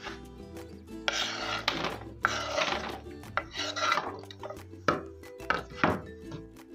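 A kitchen knife blade scrapes across a wooden cutting board in three long strokes, sweeping diced carrot off the board. Near the end come three sharp knocks as the knife and carrot pieces hit a steel tray.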